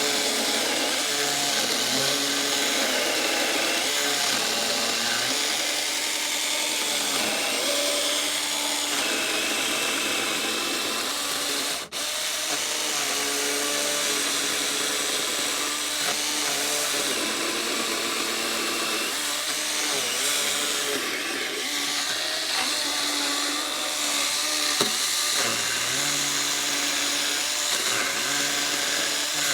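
Saker mini cordless electric chainsaw cutting through a thick pressure-treated wood beam. Its motor whine rises and falls in pitch as the chain loads up in the wood, and it cuts out for an instant about twelve seconds in.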